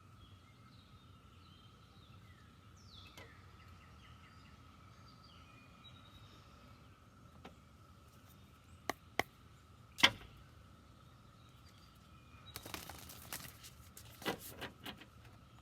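Quiet room with a faint steady high hum and a few faint bird chirps. There are three sharp taps about nine and ten seconds in, the last the loudest, then a burst of rustling near the end, like cards being handled.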